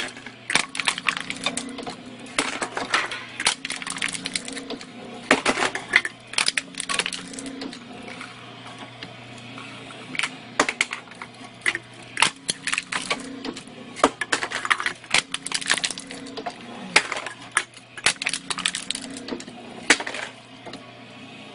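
Motor-driven homemade can crusher: a steady motor hum under irregular clattering and crunching as a crank-driven ram flattens aluminium drink cans.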